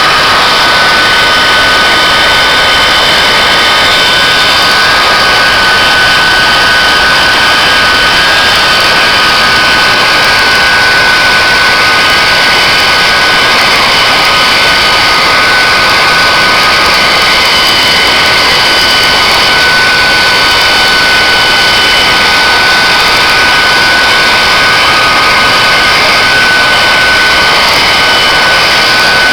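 Turbojet engine of a jet-powered railroad snow blower running steadily: a loud, continuous rush with a high-pitched whine.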